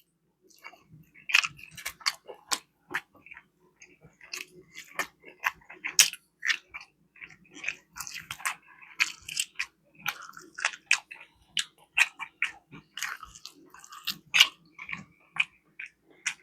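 A person chewing food close to the microphone: irregular quick wet clicks and smacks of the mouth, several a second, with pauses between.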